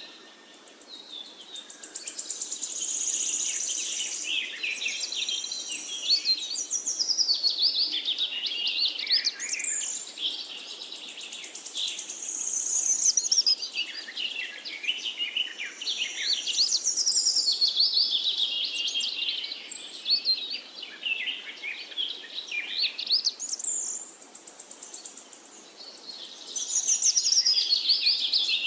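Several birds chirping and singing at once: a dense chorus of quick high notes that glide up and down, swelling and easing every few seconds.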